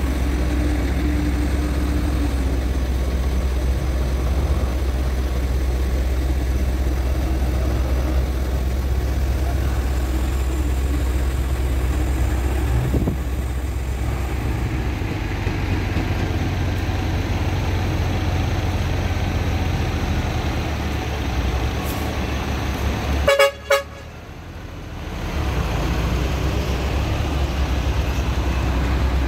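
Heavy truck engine rumbling steadily. Near the end comes one short horn blast, the loudest sound, after which the engine rumble briefly drops away and returns.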